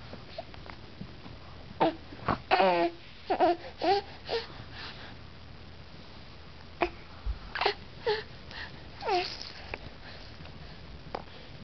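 Three-month-old baby vocalizing in short, high, wavering squeals and fussy cries. They come in two clusters, about two to four seconds in and again around eight to nine seconds in.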